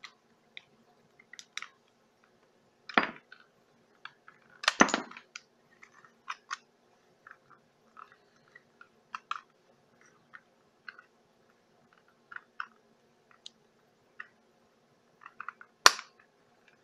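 Small clicks, taps and scrapes of fingers prying at and handling an HO-scale model locomotive's plastic body shell, with sharper knocks about three and five seconds in and again near the end.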